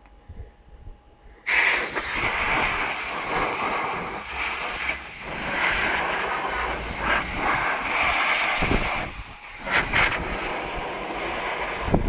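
Compressed air from a homemade compressor's tank (two refrigerator compressors feeding it) blasting out of a trigger-grip blow gun: a loud hiss that starts suddenly about a second and a half in, swelling and dipping several times, with a brief drop about three-quarters through.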